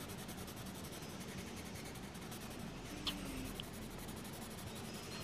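Caran d'Ache Luminance coloured pencil shading on a paper page: a faint, steady stroking of the lead across the paper, with a small tap about three seconds in.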